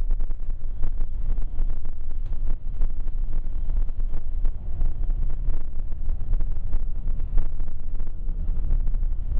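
Bus engine running and a low cabin rumble heard from inside a moving bus, with many small rattles.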